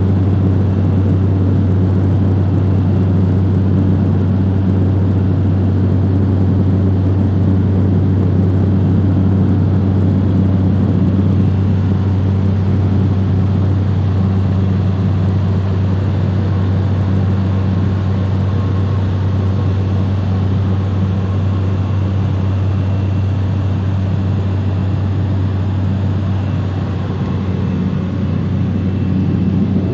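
DHC-2 Turbo Beaver floatplane's PT6A turboprop engine and propeller running steadily, a constant low drone with a faint thin high whine. It eases slightly near the end, then comes back up.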